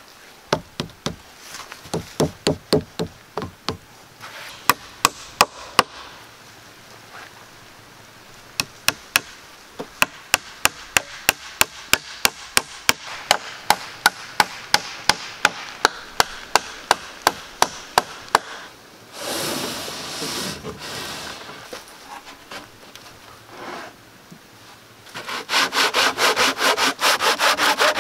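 Hand woodworking on pine boards: a long run of sharp, evenly spaced strokes on the wood, about two or three a second, stopping a little over halfway. Near the end comes fast, steady rubbing of a hand sanding block over a board.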